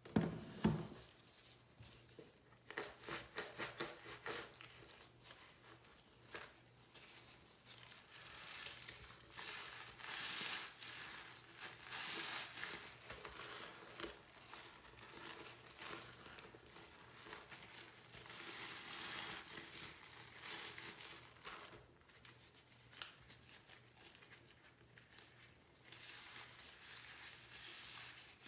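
A soap-soaked sponge being pressed and scrubbed into dry powder in a sink by a gloved hand: scratchy, crinkly rubbing in irregular strokes as the powder turns to paste, with a bump right at the start.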